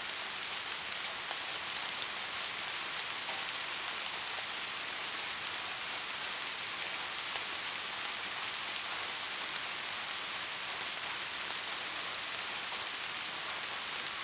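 Steady soft rain falling, an even hiss with the faint patter of individual drops.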